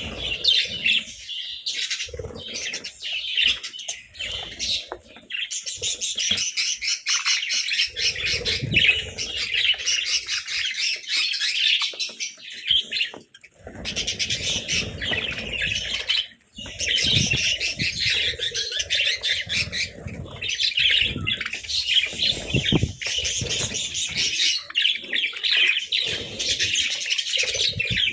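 A flock of budgerigars chirping busily and continuously, with bursts of wing fluttering mixed in. The chirping drops away briefly twice, about halfway through.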